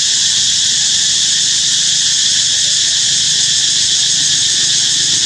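A loud, steady chorus of insects: a high, even drone with no break.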